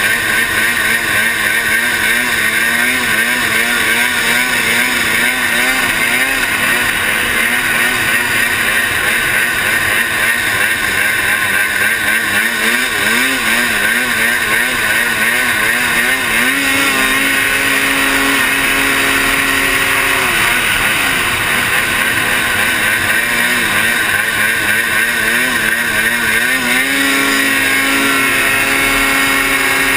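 Ski-Doo Rev 800 snowmobile's two-stroke twin engine running hard as the sled skims across water, its pitch wavering up and down with the throttle and held steady for a few seconds at a time past the middle and near the end.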